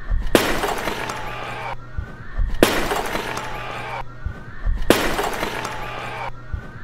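Clay jar smashed on a stage floor three times, about two seconds apart. Each is a sharp crash followed by a clattering tail of shards lasting over a second.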